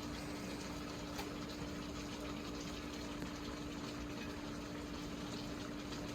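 A steady low hum with a hiss and faint scattered pops, like a pot still simmering on a just-switched-off stove.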